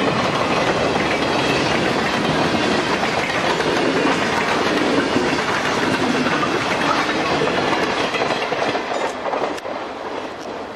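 Green Bay & Western freight cars rolling past on the rails, with a steady rumble and clatter of wheels. About eight seconds in the sound fades as the end of the train draws away.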